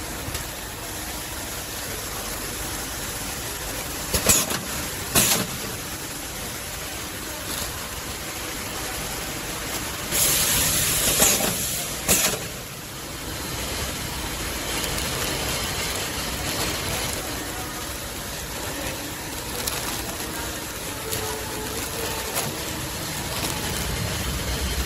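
Twist-tie bag-closing machine running with a steady mechanical noise, broken by a few sharp clacks as it cycles and a short burst of hiss about ten seconds in.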